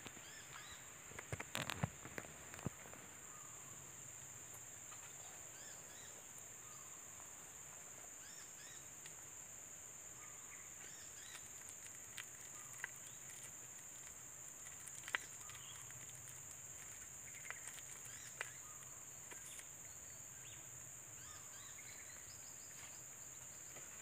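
Faint, steady, high-pitched insect drone like crickets, with soft scattered high chirps over it and a few sharp clicks in the first couple of seconds.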